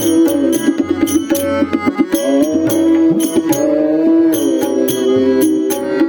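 Instrumental passage of a Marathi devotional abhang: a melody line played over drum and percussion strokes keeping a steady beat, with no singing.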